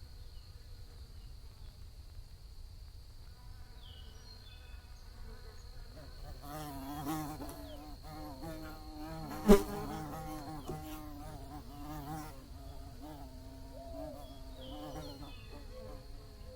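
Bees buzzing, the buzz wavering in pitch as they fly past, fading in a few seconds in and growing stronger after that. A sharp click about halfway through stands out above the buzzing, and a faint steady high whine sits underneath.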